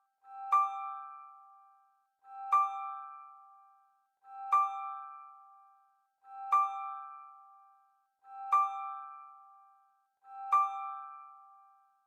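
Background music: a ringing, bell-like keyboard chord repeated every two seconds, six times, each one swelling in to a sharp strike and then fading away.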